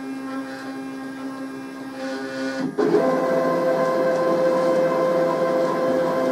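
CNC router's stepper motors whining as the machine moves the spindle and bit up and away from the grip jig. A few seconds in, the whine jumps to a louder, different set of pitches and holds steady as the move changes.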